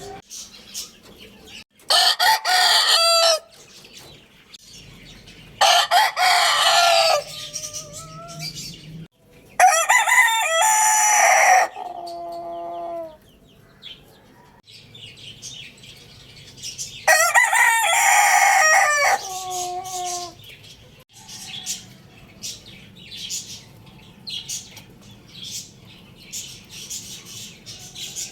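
Rooster crowing four times, each crow ending in a drawn-out falling note, with quieter clucking and short chirps between the crows.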